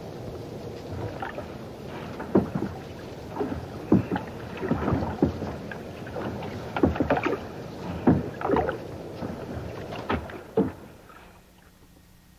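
Water splashing beside a small kayak, with irregular knocks and clunks against the hull as a gill net is checked over its side. The sounds stop abruptly near the end.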